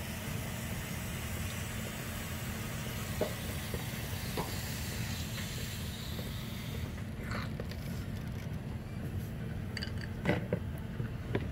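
Water running out of a tank water heater's drain valve into a bucket, a steady hiss that drops away about seven seconds in. A steady low hum runs underneath, with a few faint knocks.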